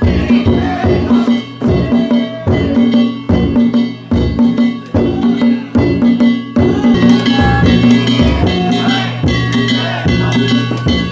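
Danjiri festival music (narimono): taiko drums beaten in a steady, driving rhythm with ringing hand gongs over them.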